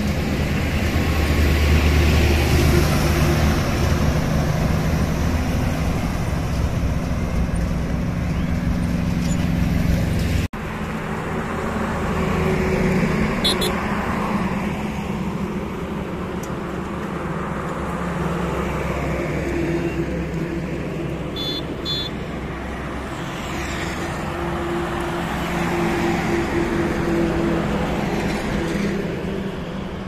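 Highway traffic of heavy diesel trucks and motorcycles passing close by: a continuous engine rumble and tyre noise that swells and fades as each vehicle goes past, with a sudden cut about a third of the way in. Short high beeps sound twice.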